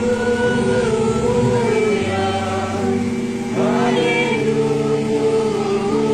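Choir singing a hymn in long held notes, phrase after phrase, with a steady low tone sustained beneath the voices.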